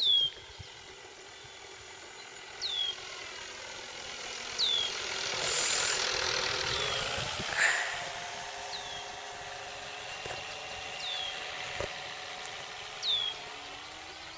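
Radio-control P-40 model making a low, slow flyby: the simulated warbird engine sound from its small onboard sound unit, mixed with propeller noise, swells to a peak about halfway through and drops in pitch as it passes. A bird's short downward chirps repeat every two seconds or so, louder than the plane.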